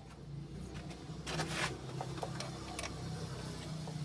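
A few metallic clicks and clinks from a wrench being picked up and handled on the car's wheel bolts, over a steady low hum.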